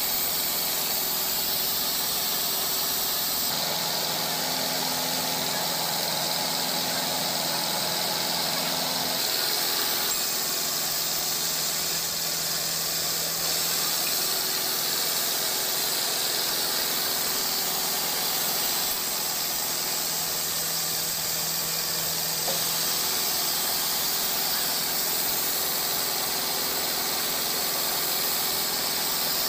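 Industrial sawmill headrig running steadily as it mills a rosewood log on the carriage: a dense high hiss with a steady low hum underneath.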